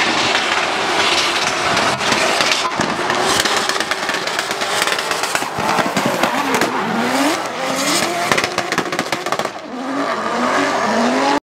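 Drift cars sliding with tyres squealing and screeching, their engines revving up and down.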